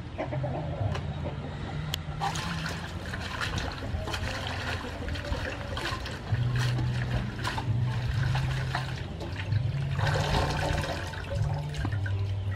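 Water sloshing, trickling and splashing in an aluminium basin as bunches of edible amaranth leaves are swished and lifted out by hand to be rinsed.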